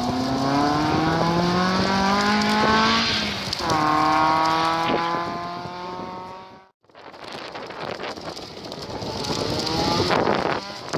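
Rally car engines at full throttle. The first car revs up through a gear, shifts up about three and a half seconds in, and revs up again as it fades into the distance. After a sudden break, a second car's engine grows louder as it approaches at speed.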